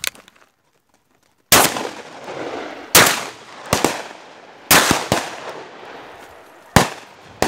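Shotgun fired four times, roughly one and a half seconds apart, each shot echoing and fading away, with a few fainter shots in between.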